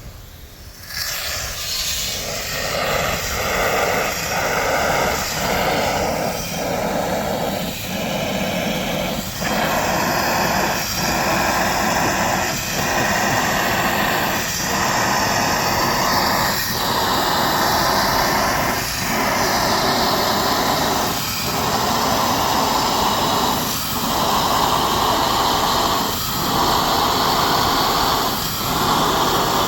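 Lawn sprinkler spraying water in a loud, steady hiss that dips briefly every couple of seconds as the spray sweeps past.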